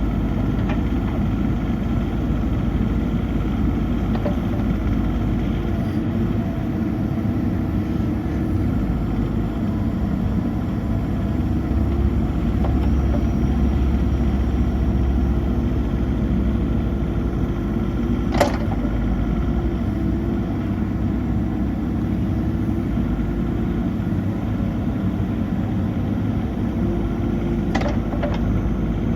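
Caterpillar 304D CR mini excavator's diesel engine running steadily, with a single sharp click about eighteen seconds in.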